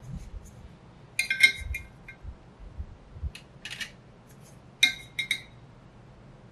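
Metal kitchen tongs clinking against a wire rack and metal tray while potato wedges are set in place, in a few short clusters of sharp clinks.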